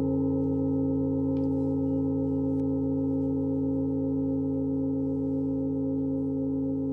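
Singing bowls ringing on together as a chord of several steady, overlapping tones, slowly fading. Two faint clicks sound about one and a half and two and a half seconds in.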